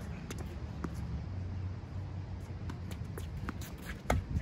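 Tennis rally on a hard court: faint scattered ball-on-racket and ball-bounce clicks from the far side, then a sharp racket strike on the ball from a close forehand about four seconds in, over a steady low rumble.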